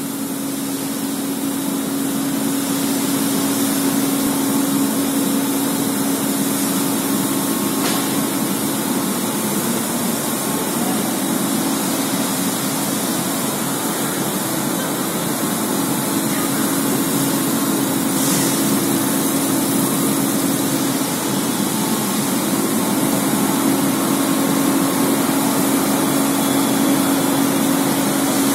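Coating lamination machine running: a steady hum under a continuous hiss of motors and moving air and film, with no change in speed.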